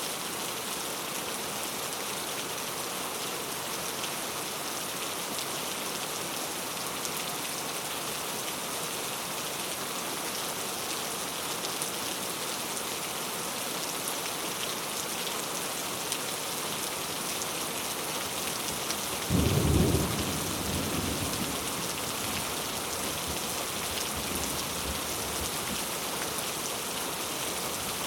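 Heavy rain falling steadily. About two-thirds of the way through comes a sudden loud thunderclap, which rumbles on more quietly for a couple of seconds.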